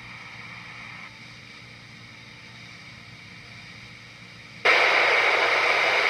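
NOAA Weather Radio receiver's speaker giving a faint hiss of dead air, then loud static switches on abruptly near the end and holds steady.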